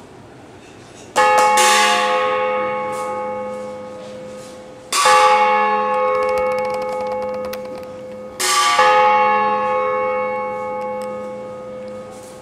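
A large bell struck three times, about four seconds apart. Each stroke rings out and slowly fades before the next.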